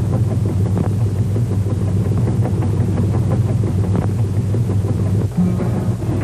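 A ship's engine running with a low, steady throb, dipping briefly about five seconds in.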